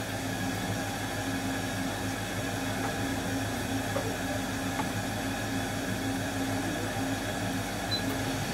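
A steady low machine hum with a constant drone, typical of a small food kiosk's running equipment, with a few faint clicks.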